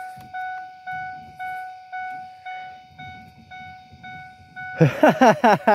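1997 Ford F-150's dashboard warning chime, dinging steadily about three times a second. Near the end, a loud burst of quick, falling squeaks cuts across it.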